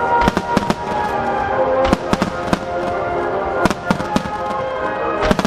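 Aerial firework shells bursting, about eight sharp bangs at irregular intervals, over the show's accompanying music with long held notes.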